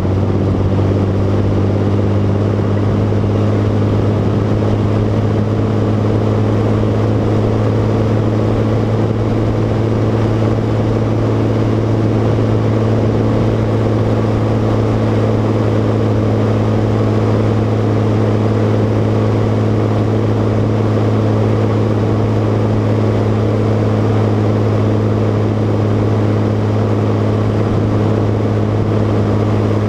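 Fendt tractor's diesel engine running at a steady speed while driving, heard right beside its curved upright exhaust stack.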